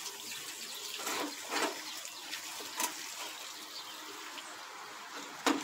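Water from a garden hose running steadily down into a plastic downspout drain pipe, flushing the underground drain line to find where a debris clog makes it back up. A few light knocks, and one sharper knock near the end.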